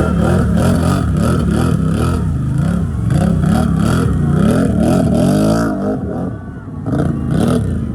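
ATV engine revving up and down over and over, about once a second, with a longer climb near five seconds. It drops off about six seconds in and picks up again shortly after.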